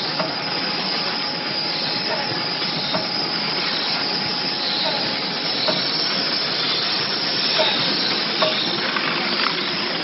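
Multi-lane vertical stick-pack packaging machine running: a steady hissing machine noise with faint light clicks repeating about once a second as it cycles.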